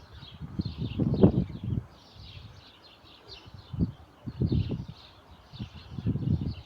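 Gusts of wind buffeting the microphone in irregular low rumbles, loudest about a second in and again around four and six seconds. Small birds chirp continuously behind it.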